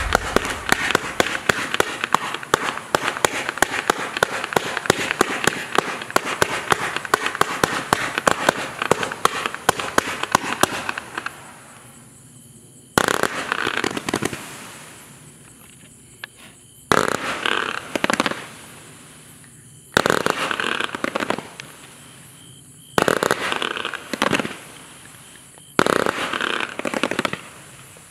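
A 200-shot consumer fireworks compound cake firing fan-shaped volleys of comets. It starts with a fast run of launch shots, several a second, for about ten seconds. Then volleys of shots come about every three seconds, each fading away before the next.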